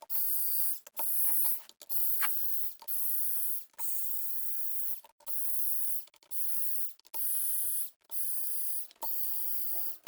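Cordless screwdriver motor run in about ten short bursts of just under a second each, stopping and starting sharply, as screws are driven out of a battery case.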